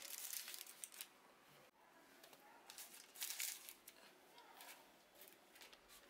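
Faint crinkling of parchment paper lining a baking tray as soft pieces of brioche dough are set down on it, in a few short rustles, the loudest in the first second and around three seconds in.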